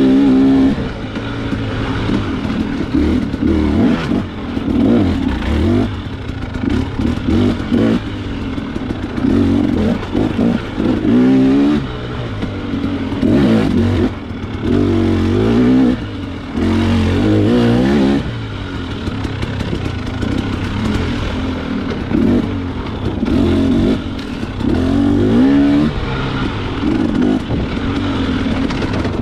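Dirt bike engine revving up and dropping back over and over as the rider accelerates and eases off through an off-road race section, with occasional knocks and rattles from the bike over rough ground.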